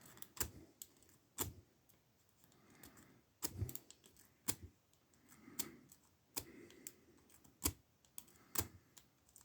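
Lock pick and tension tool clicking in the pin tumblers of a Burg 111/40 padlock, with repeated zipping attempts while the lock stays shut. About a dozen sharp clicks come at uneven intervals, mixed with a few soft handling rustles.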